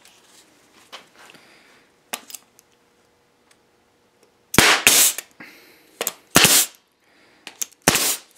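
Pneumatic staple gun driving staples into stacked boards to fasten them together: three sharp shots in the second half, each a quick double crack, after some quieter handling.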